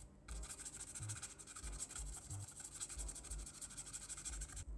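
Stiff paintbrush bristles scrubbing back and forth over the painted plastic hood of an RC car body in rapid scratchy strokes, chipping the blue top coat off over a hairspray layer. The scrubbing stops just before the end.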